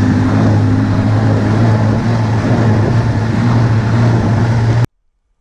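Ski-Doo Skandic snowmobile running at steady speed, the engine holding one low pitch under wind and track noise; it cuts off suddenly about five seconds in.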